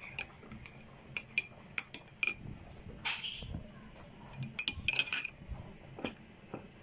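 A metal spoon clinking against the inside of a ceramic mug while stirring instant coffee: a run of light, irregular clinks. There is a short burst of noise about three seconds in.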